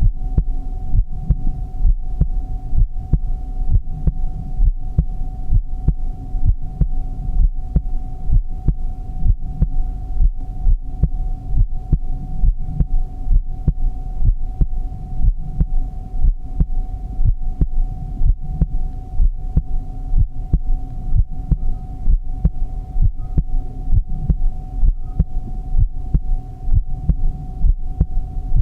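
Heartbeat sound: an even, steady rhythm of low thumps, with a steady hum underneath.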